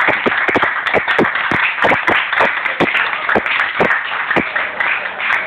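A small group of people clapping and applauding, with many sharp, uneven claps over a dense patter.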